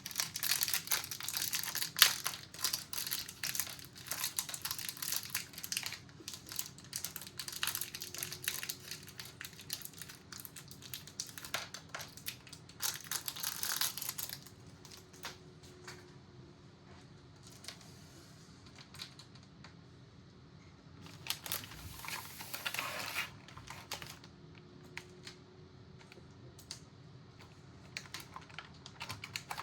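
Rustling, crinkling and clicking of small plastic parts and packaging being handled, dense for the first half, with another brief spell of rustling a little after two-thirds of the way through. These come from the CPU cooler's backplate and its sliders being adjusted.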